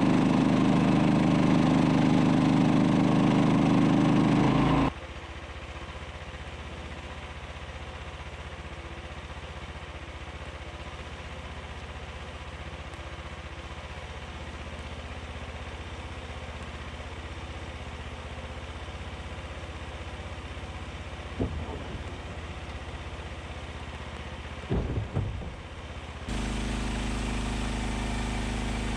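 Massey Ferguson 255 tractor engine running. It is loud for the first few seconds, then cuts abruptly to a quieter steady hum with a couple of brief louder noises, and steps up to a louder steady run near the end.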